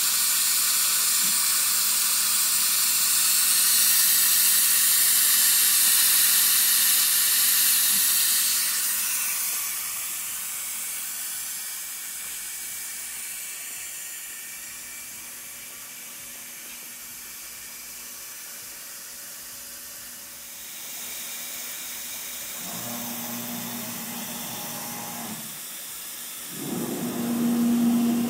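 A MultiCam CNC router's 5.5 HP Colombo spindle runs its warm-up, heard mostly as a loud steady hiss of the air that cools it. The hiss fades after about 9 s. Near the end come two bursts of humming motor whine, the second louder, as the gantry traverses at high speed.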